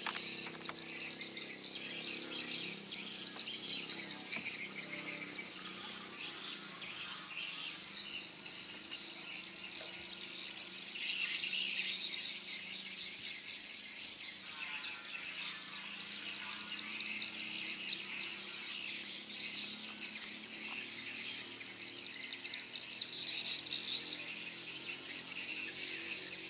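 A continuous high-pitched chorus of chirping insects and birds. A low steady hum fades out in the first few seconds.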